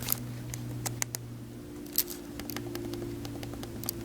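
Scattered small sharp clicks and light taps over a steady low electrical hum, with the loudest click about two seconds in and a quick run of faint ticks shortly after.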